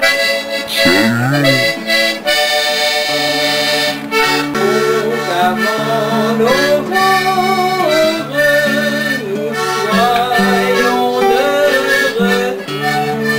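Background music: an accordion playing a folk tune, a melody moving over held bass chords.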